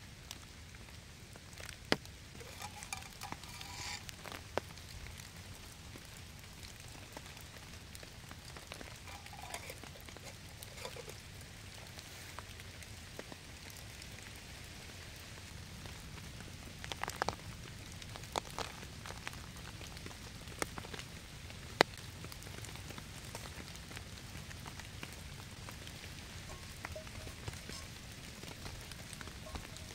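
Steady light rain falling on forest foliage, with scattered sharp clicks and pops over the top.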